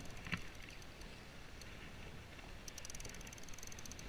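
Conventional fishing reel ticking rapidly in spurts as line is cranked in under the weight of a heavy fish, over a low rumble of wind and water. A single knock sounds about a third of a second in.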